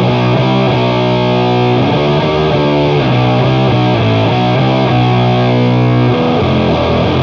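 Heavily distorted electric guitar in B standard tuning playing a slow doom metal riff in B minor, with long held low notes. It runs through a parallel blend of octave-up fuzz and HM-2 style chainsaw distortion. The riff moves to a new part about six seconds in.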